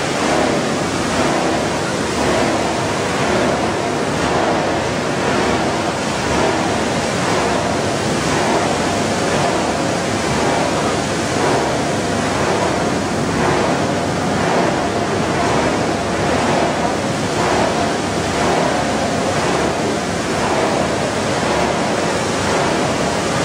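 PET bottle recycling washing line running: a steady, loud rush of water churning shredded plastic flakes in the washing tank, mixed with machine noise.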